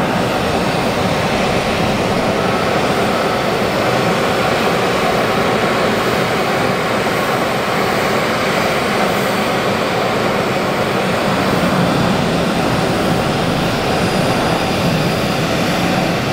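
Business-jet turbofan engines running at a loud, steady level as the jet moves along the runway.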